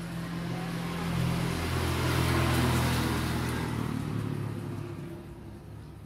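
A motor vehicle driving past, its engine and road noise swelling over a couple of seconds and then fading away.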